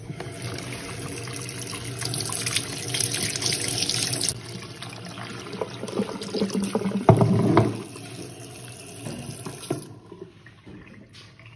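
Kitchen tap running into a sink, then filling a glass bowl of water where leafy greens are being rinsed; a hand swishing the leaves makes louder splashes about seven seconds in. The water stops near the end.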